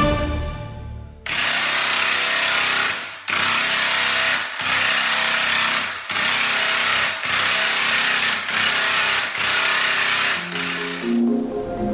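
Handheld corded electric paint sprayer spraying paint onto a wall with a loud, steady hiss, cutting out briefly about seven times between passes.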